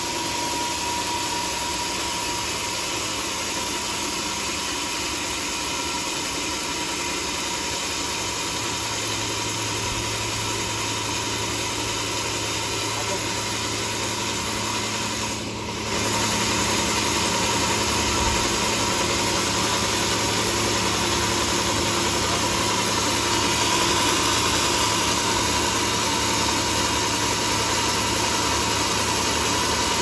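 Homemade band sawmill running steadily: a constant machine drone with a thin, steady high whine. It dips briefly about halfway through and is a little louder after that.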